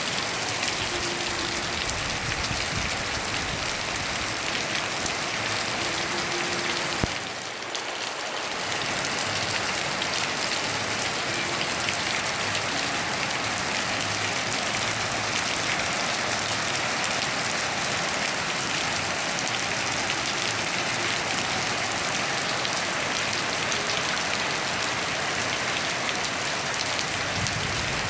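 Rain falling steadily, with a click and a brief lull about seven seconds in.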